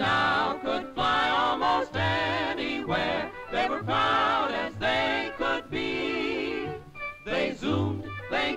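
Cartoon background score: a lively tune whose melody wavers in pitch, over a low bass note every couple of seconds.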